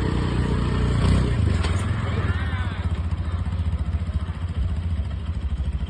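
A motor or engine running steadily, with a fast even pulsing.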